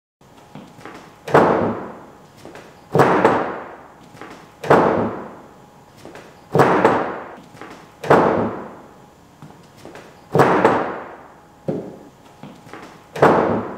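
A person repeatedly jumping and sliding onto the 2009 Ford Focus's hood: seven loud thumps, roughly one every one and a half to two seconds, each dying away over about half a second.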